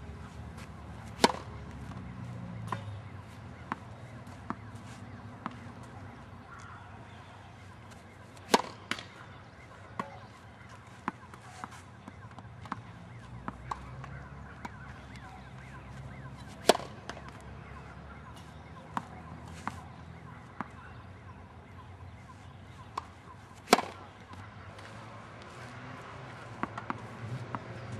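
A tennis racket strikes the ball four times, sharp loud pops roughly every seven to eight seconds, with fainter taps in between.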